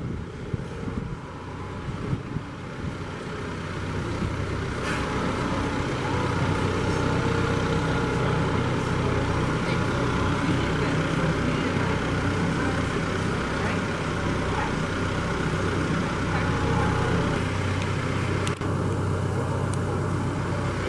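John Deere utility tractor's diesel engine running steadily, getting louder over the first few seconds and then holding an even note.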